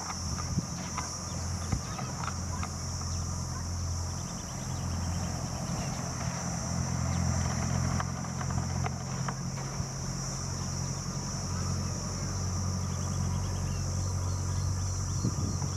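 Steady outdoor background: a continuous high insect drone over a low, even hum, with scattered faint clicks. No peacock call is heard.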